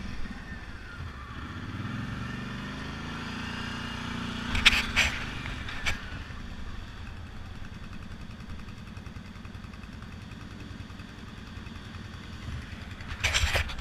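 Kawasaki Brute Force 750 ATV's V-twin engine running while riding a dirt trail. Its pitch rises and falls with the throttle over the first few seconds, then it settles lower. There are a few sharp knocks about five seconds in and again near the end.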